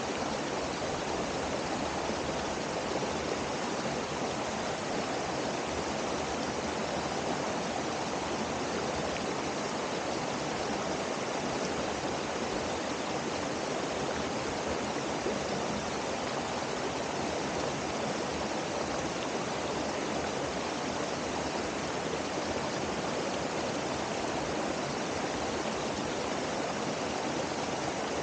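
Waterfall and the stream below it: a steady, unbroken rush of falling water.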